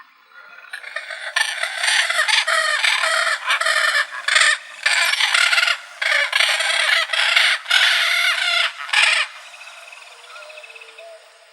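Parrot squawking loudly in a long string of short calls for about eight seconds, then stopping.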